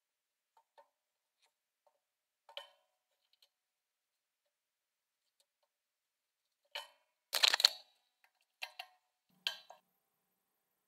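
Handling noises: scattered small clicks and knocks as hands work a leather-wrapped wooden hammer handle and tools, with a louder brief rustling scrape about seven and a half seconds in and a few sharper knocks after it.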